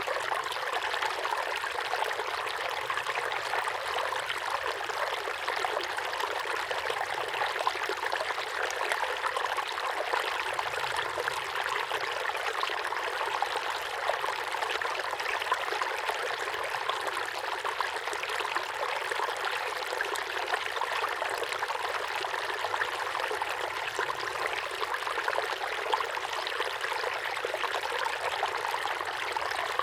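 Mini waterfall pouring steadily into a small pond: a continuous splashing rush of falling water.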